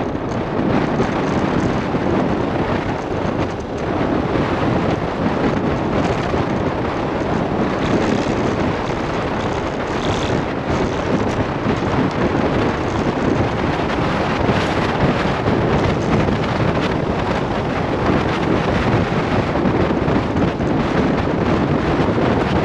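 Wind rushing over the microphone, a steady loud buffeting from the speed of a downhill bicycle ride.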